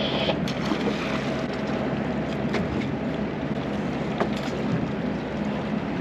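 Steady low hum of a sportfishing boat's engine running, under a wash of wind and water noise, with a few faint clicks.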